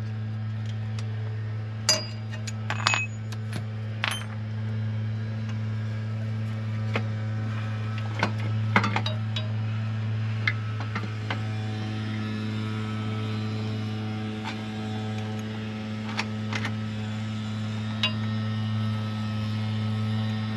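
Scattered metallic clinks and taps of hand tools on engine parts, over a steady low hum.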